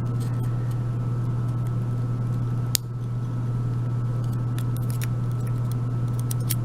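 Small metallic clicks from a euro cylinder lock and its pins being handled during disassembly, with one sharper click near the middle and a few faint ticks later, over a steady low hum.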